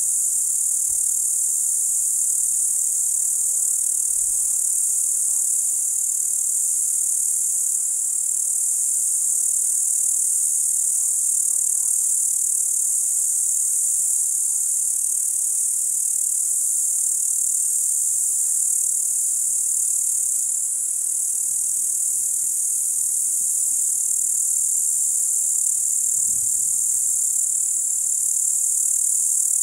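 Dense, steady high-pitched chorus of crickets chirping without a break.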